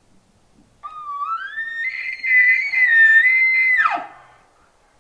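Bull elk bugling at close range: one long call that slides up into a high, held whistle with a rough growl beneath it, then drops off sharply about four seconds in.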